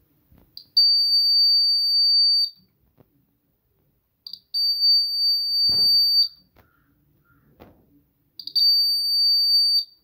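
Small battery-powered buzzer of a home-made water-tank overflow alarm sounding three times, each a steady high-pitched tone lasting about two seconds, as the float contact closes the circuit in water, the signal that the tank is full. A couple of faint knocks fall between the tones.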